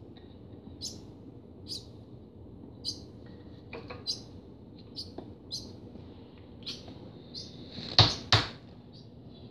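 Barn swallow nestling giving short, high begging chirps, repeated about once a second. About eight seconds in, two loud knocks come close together.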